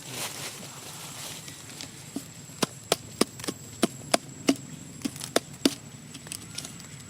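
A quick run of about a dozen sharp knocks or snaps, roughly three a second, starting about two seconds in and stopping about two seconds later.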